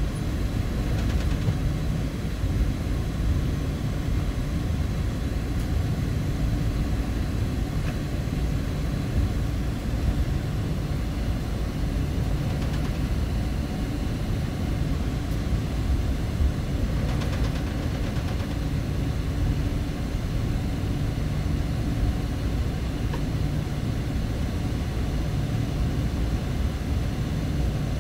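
Steady low rumble of a Boeing 777-200 with Rolls-Royce Trent engines, heard from inside the cabin as the airliner taxis.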